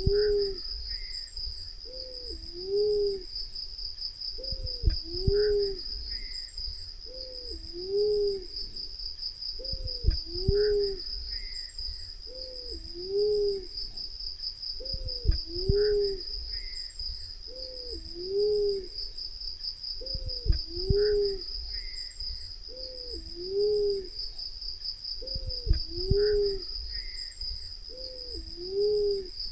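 Black-naped fruit dove calling: a low two-note hoot, a short rising-then-falling note followed by a lower, stronger one, repeated about every two and a half seconds. A steady high-pitched insect trill runs beneath.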